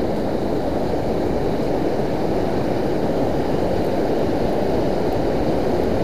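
Steady wash of sea surf and choppy water around a wading angler, with wind rumbling on the microphone.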